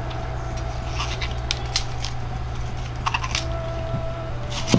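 Crisp snapping and crackling as the outer stalks of a bok choy head are pulled off at the base, heard as a few clusters of short sharp clicks over a steady low hum.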